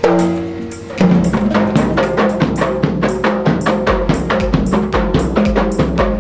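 Hand frame drums and a large bass drum played together in a fast, steady beat. A struck, ringing tone opens it, and deep bass-drum beats come in about four seconds in.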